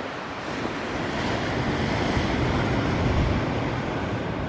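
Wind buffeting the microphone over the steady rush of surf.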